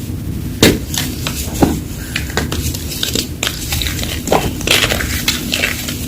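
Blocks of Reform gym chalk being crushed and crumbled, giving irregular sharp crunches and crackles, the loudest about a second and a half apart near the start.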